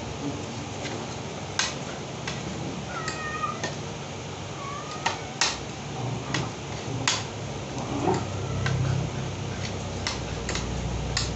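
Eating at a shared platter: lip smacks, chewing and the clicks of a spoon and fingers on food and plate, with a few short high squeaky calls in the middle.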